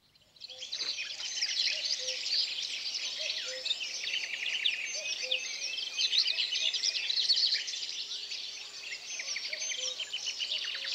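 Dense chorus of small birds chirping and twittering, with a soft low note repeating about every second and a half.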